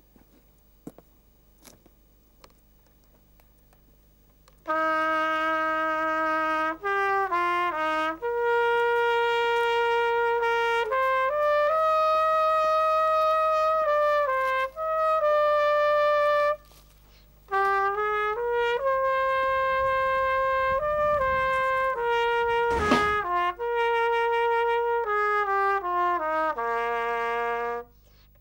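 Solo trumpet playing a slow melody of long held notes, after a few seconds of near silence. There is a short pause a little past the middle and a brief knock late on.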